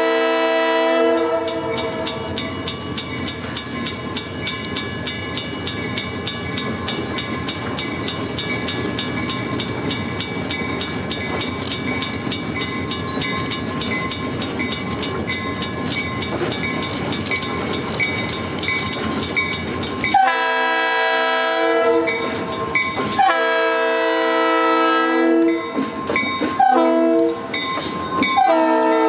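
Diesel locomotive horn finishing a blast, then a freight train of boxcars rolling by with its wheels clicking evenly over the rail joints. About 20 seconds in, the horn sounds the grade-crossing signal: two long blasts, a short one, and a long one that is still sounding at the end.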